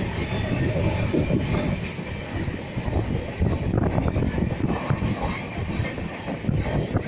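Jnaneswari Express coaches running on the track, heard from on board: a steady rumble with frequent irregular rattles and knocks from the carriage.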